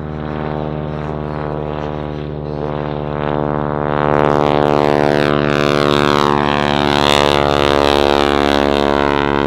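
Boeing Stearman N2S-4 Kaydet biplane's radial engine and propeller running steadily in a low pass, growing louder about four seconds in as the aircraft comes close.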